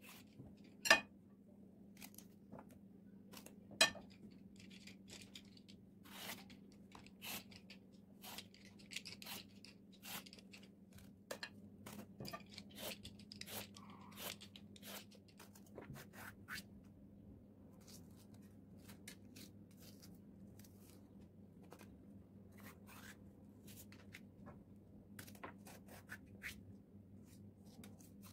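A small kitchen knife peeling strips of skin off eggplants: a string of short scrapes and cuts, with two sharp clicks in the first few seconds. Near the end the knife slits into a long green pepper.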